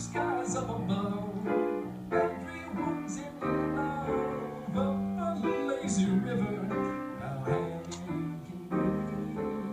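Instrumental music: a melodic passage on piano or keyboard with plucked guitar, the notes changing every half second or so.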